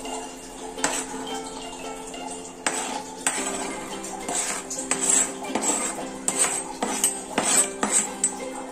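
Metal spoon scraping and tapping chopped tomatoes off a plastic chopping board into a steel pan: a string of sharp clicks and scrapes, over background music.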